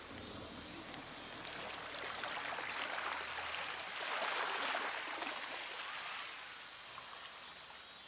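Small waves washing over a pebble beach: a rush of water over stones that builds to its loudest about four seconds in, then eases off.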